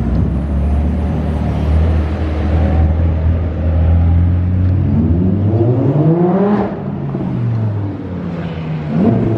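A car engine runs with a steady low rumble, then revs up once and drops back, peaking about six and a half seconds in. A second short rev comes near the end.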